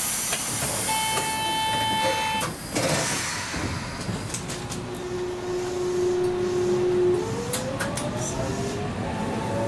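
Toyohashi Railway 780-series tram at departure: a steady beeping buzzer tone for about a second and a half, then a thud about three seconds in, typical of the doors shutting. From about five seconds a steady motor whine sounds, and about seven seconds in it starts rising in pitch as the tram begins to pull away, over a steady rumble.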